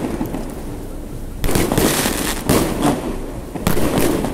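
New Year fireworks salute going off: three loud bursts about a second apart, each trailing on for about a second after its sharp start.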